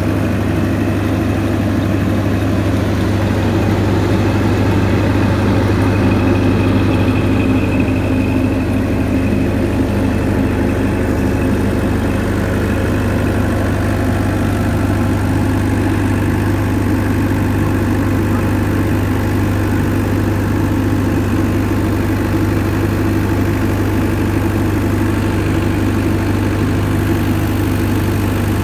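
Diesel engine of a 16 kVA Perkins–Stamford generator set running steadily at constant speed on a test run, a deep even hum inside its soundproof canopy with the side access door open.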